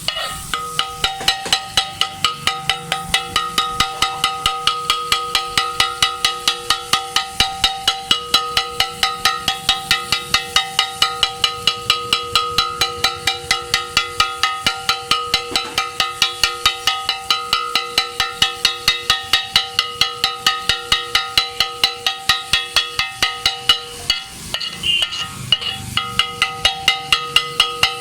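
Kothu parotta being chopped: a pair of flat steel blades striking a flat iron griddle in a fast, even rhythm, about four strikes a second, each clang ringing. The rhythm breaks off briefly about four seconds before the end, then resumes.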